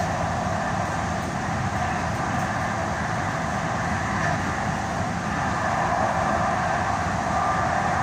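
Steady running noise inside a DART light rail car travelling at speed: an even rumble of wheels on rail.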